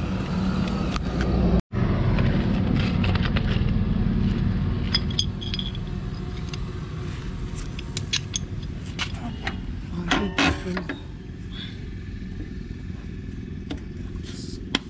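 Scattered metallic clicks and clinks as scooter drum-brake shoes and their return springs are handled and fitted onto the rear brake plate, with a burst of clattering about ten seconds in. A steady low rumble underneath.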